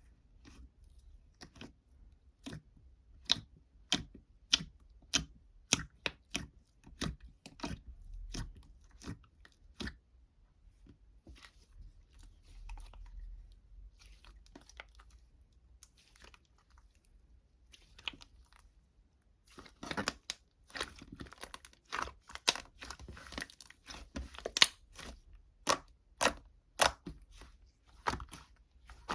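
A run of irregular, sharp, crisp clicks and crackles, like crunching or tearing, sparse at first and coming thick and fast in the last third.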